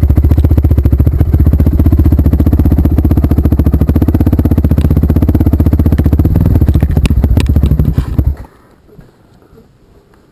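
Trail motorcycle engine running loud and steady at low revs, then shut off abruptly about eight seconds in.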